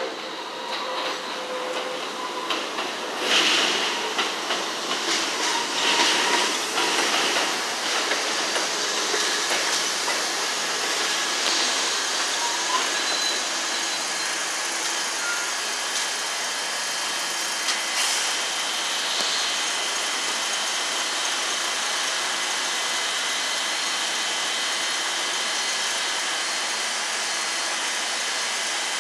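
New York City subway train pulling into an elevated station: wheels clacking over the rail joints, with short squeals, in the first several seconds. Then the train stands with a steady hum and a thin high whine.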